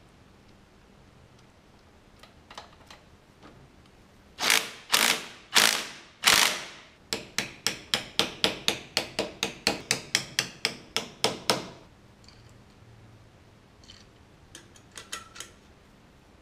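Socket ratchet wrench clicking as it turns bolts on a Honda Cub engine's clutch. There are four longer sweeps of fast ratcheting, then a steady run of about four clicks a second for some four seconds, and a few faint clicks near the end.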